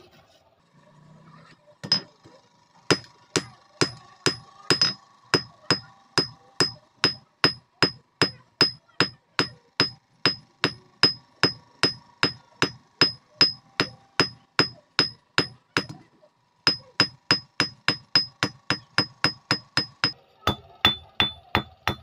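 Hand-hammer blows on a red-hot steel bar lying on a steel-block anvil, each with a high metallic ring. They come steadily at about two a second, stop briefly about two-thirds of the way in, then come faster for a few seconds. Near the end, after another short stop, the blows ring on a lower note.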